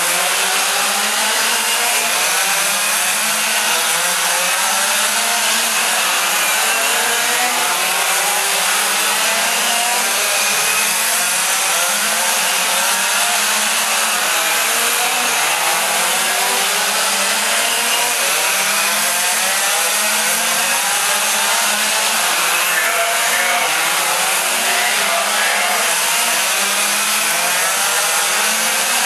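Several 1/4-scale RC race cars' small two-stroke gas engines buzzing together, their overlapping pitches rising and falling continuously as the cars accelerate and lift off around the track.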